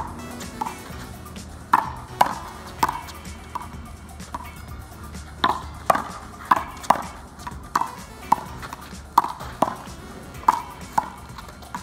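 One-wall handball rally: a small rubber ball slapped by hand and smacking off a concrete wall and the pavement, a quick, irregular run of sharp smacks.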